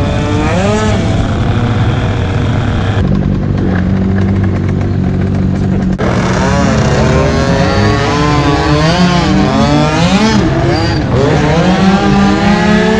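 Motorcycle and scooter engines revving up and down in traffic, with a steadier drone between about three and six seconds in; the sound changes abruptly at those two points.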